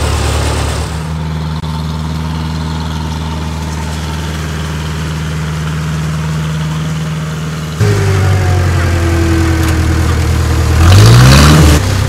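Bulldozer's diesel engine running steadily just after starting. About eight seconds in it suddenly gets louder, and shortly before the end it revs up briefly, rising in pitch, then drops back.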